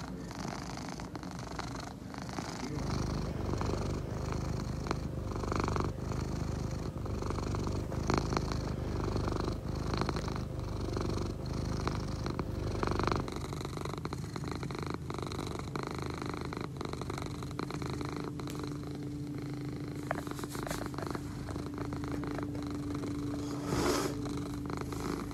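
Egyptian Mau cat purring steadily close to the microphone, a continuous low rhythmic rumble.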